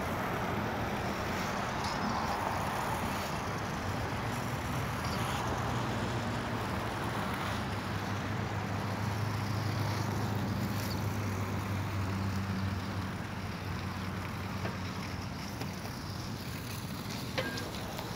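Inline skate wheels rolling over rough, cracked asphalt: a steady rolling hiss, mixed with wind on the microphone. A low steady hum builds about five seconds in and fades after about twelve seconds.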